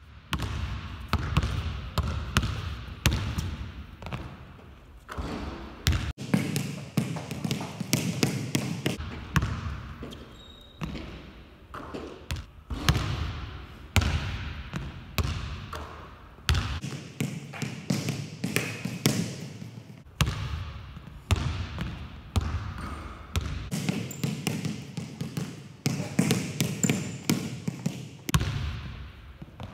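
Basketball dribbled on a hardwood court: a long run of sharp, quick bounces, each ringing briefly in a large empty arena.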